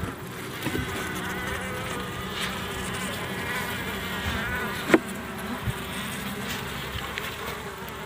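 Honeybees buzzing steadily over an opened hive box, with one sharp knock about five seconds in.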